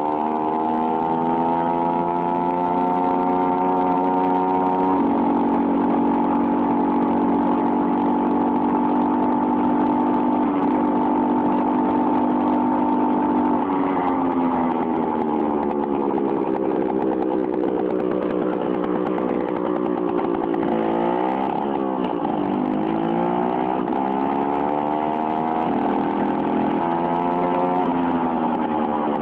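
Hercules Prima 5 moped's 50 cc two-stroke engine running through a tuning exhaust with a shortened P2 header pipe, with its typical crackling two-stroke putter. Engine speed holds steady for the first half, then drops and climbs again several times.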